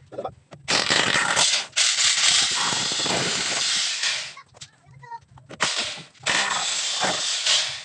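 Rotary hammer drill boring into a masonry wall, running in long bursts with a brief pause near the middle, drilling an anchor hole for a window grille.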